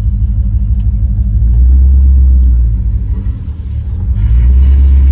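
Car engine running through its newly fitted exhaust, giving a loud, deep, steady rumble that eases briefly about three and a half seconds in.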